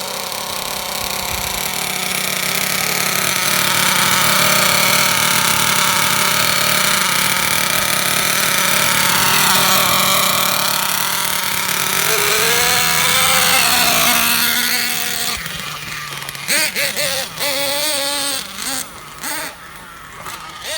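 Small nitro engine of a Thunder Tiger Sledge Hammer S50 1/8-scale RC monster truck running at high revs, its pitch dipping and climbing again around ten to thirteen seconds in. It drops away about fifteen seconds in, and short spells of a person's voice follow.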